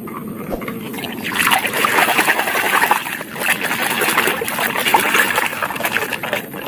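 Muddy water splashing and sloshing as a plastic toy car is swished and scrubbed by hand in a shallow puddle, the splashing getting louder about a second and a half in.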